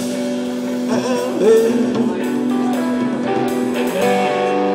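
Live rock band playing: two electric guitars holding ringing chords over a drum kit, with a man singing a wavering line about a second in.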